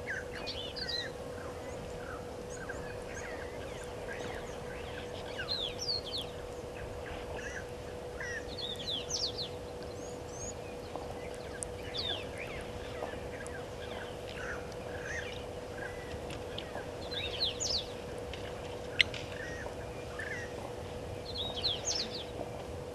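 Wild birds calling, with many short chirps and whistled notes scattered throughout, over a steady low hum. A single sharp click stands out about three quarters of the way through.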